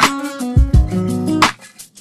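Background music: plucked guitar over a drum beat, with a sharp snare-like hit at the start and another about one and a half seconds in, and two low kick thumps between them.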